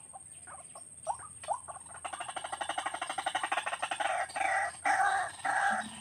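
White-breasted waterhen calling: a fast rattling run of notes starts about two seconds in, then turns into loud repeated notes about two a second near the end.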